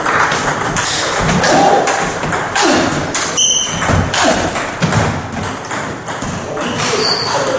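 Table tennis rally: the ball clicking sharply off the paddles and the table, many clicks in quick succession, in a hall with a wooden floor.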